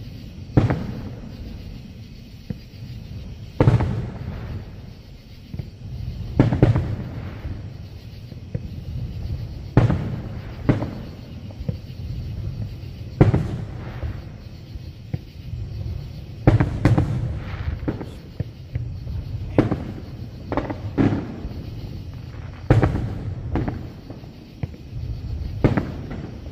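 Aerial fireworks shells bursting: sharp bangs every one to three seconds, each trailing off in a low rolling echo, with several coming close together in the second half.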